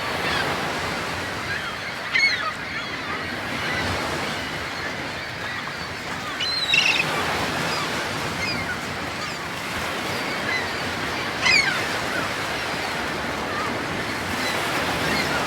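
Steady rush of sea waves with short bird calls three times, about two, seven and eleven and a half seconds in.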